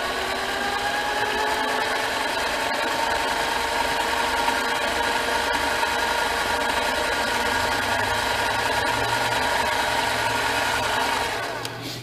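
Metal lathe running: its motor whine rises in pitch as the spindle comes up to speed in the first second, holds steady, then fades and stops a little before the end.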